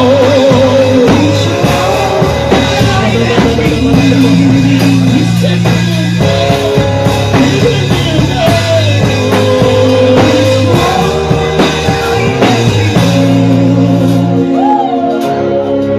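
Gospel worship band playing without words: drum kit and bass under a sustained lead melody with wavering vibrato.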